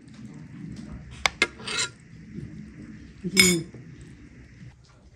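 A metal spoon knocking and scraping in a large stone-coated pan while food is dished out: two sharp clicks, a short scrape, then one louder ringing clink about three and a half seconds in.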